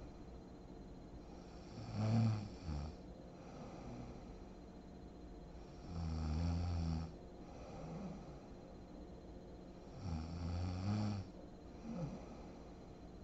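A sleeping woman snoring: three low snores about four seconds apart, with fainter breath sounds between them.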